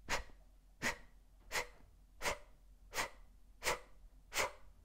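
A woman's short, forceful exhalations through the mouth, fire breathing (breath of fire), each puff driven by pressing in the abdominal muscles. Seven quick puffs in an even rhythm, about three every two seconds.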